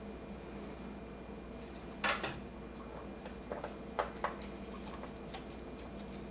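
Small screwdriver and screws on a laptop's display frame: a few light clicks and taps as the screen's mounting screws are driven in, with a sharp high click near the end, over a steady low hum.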